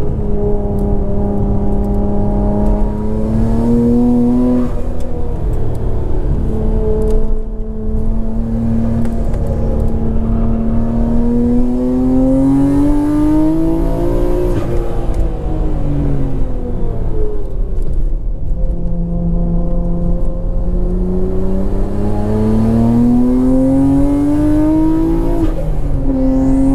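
Nissan Skyline R34 GT-R's RB26DETT twin-turbo straight-six heard from inside the cabin under hard driving: the engine note climbs slowly in pitch and falls back three times, about 5, 14 and 25 seconds in, over steady road rumble.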